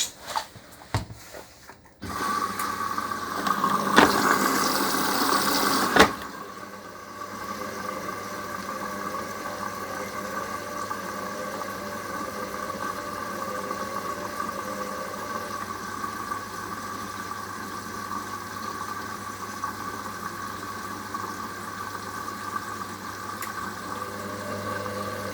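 Hoover Link HLW585DC washer dryer filling with water at the start of its cycle. A few clicks come first. About two seconds in, water starts rushing in loudly, with two knocks. About six seconds in it settles to a steadier, quieter flow with a held tone and a low hum.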